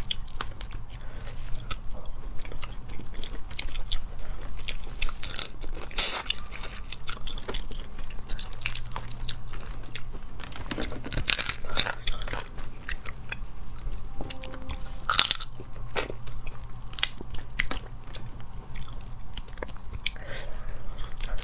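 Crayfish shells cracked and peeled by hand and the meat bitten and chewed close to the microphone: a string of short cracks and clicks, with a few louder cracks, over a low steady hum.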